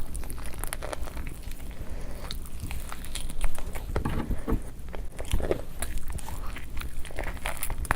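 Person eating close to the microphone: irregular chewing and biting of a spicy meat curry and rice meal, with a louder bite about three and a half seconds in.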